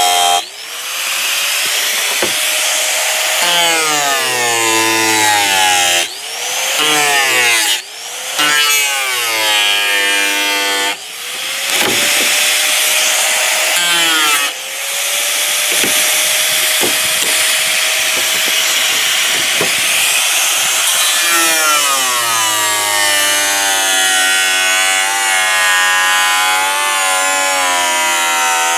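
Angle grinder with an abrasive disc cutting away excess thermoformed acrylic, the disc rasping on the plastic. The motor's whine drops in pitch as the disc bites and climbs back, several times in the first half, then runs steadier under lighter load.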